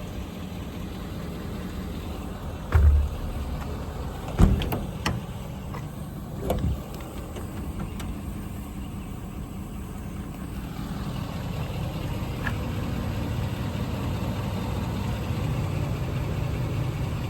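Ford F550 service truck's engine idling with a steady low hum, growing a little louder after about eleven seconds, with several short knocks in the first few seconds.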